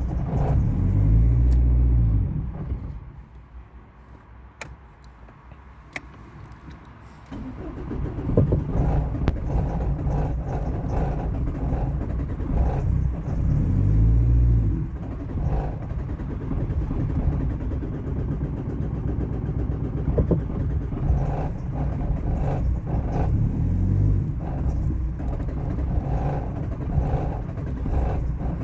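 A car engine sound, loud at first, then dropping away for about five seconds with a few sharp clicks, then going steadily again with two swells.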